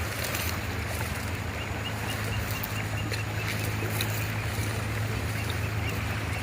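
Swollen river in flood, its fast water rushing in a steady, dense roar, with a steady low hum underneath.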